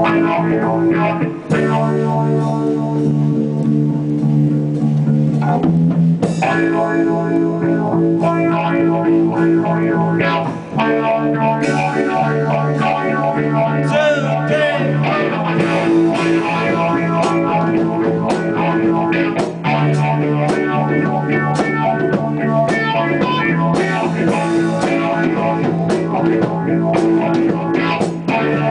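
Live rock music from electric guitars played through amplifiers: held, ringing chords that change every few seconds, with picked notes over them.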